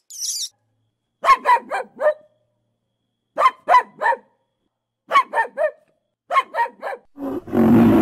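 Puppy barking in quick groups of three or four short yaps, four times over with pauses between. High chirping is heard for the first half second, and a loud low roar starts near the end.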